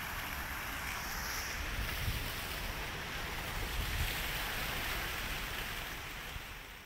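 Steady splashing of an outdoor fountain's water jets, with wind gusting on the microphone twice; it fades out near the end.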